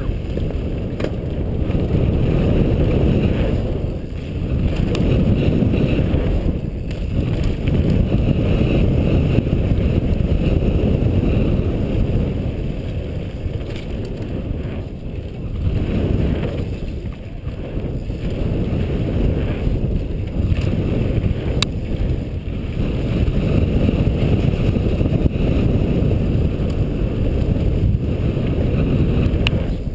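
Wind buffeting a helmet-mounted camera's microphone while a mountain bike runs fast down a gravel track, mixed with the rumble of the tyres on loose dirt. The noise swells and eases throughout, with a sharp click or two near the end.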